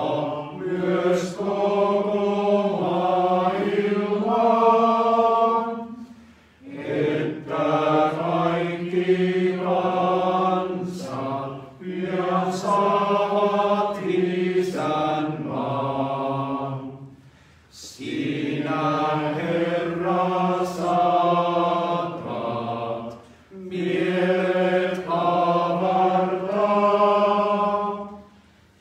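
Male voice choir singing a slow unaccompanied Finnish hymn in held phrases of about five seconds, with a short breath between each phrase.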